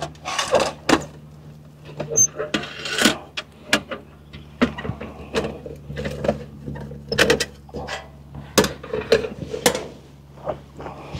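A UCO Flatpack portable grill and fire pit being unfolded and set up: an irregular string of metal clicks, clanks and short scrapes as its stainless-steel panels are handled.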